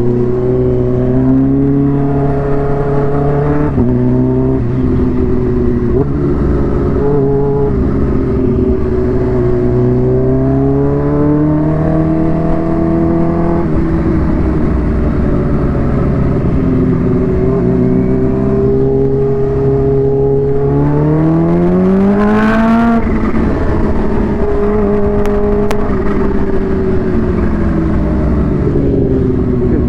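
Supercharged Kawasaki Ninja H2 inline-four running through a Vandemon exhaust while riding. It rises in pitch several times as it pulls through the gears and drops back at each shift, with the hardest climb about two-thirds of the way in. Wind rushes on the microphone.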